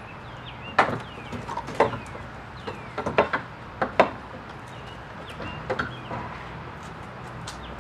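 Flat pry bar levering the brick mold off a pre-hung steel door's jamb: a run of irregular sharp knocks and creaks as the fastened trim pulls loose, the loudest about four seconds in.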